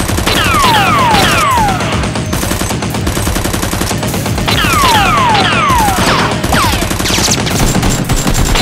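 Rapid automatic gunfire sound effects dubbed over toy blaster fire. Falling whistling zips come in clusters of two or three about half a second in, and again in the second half.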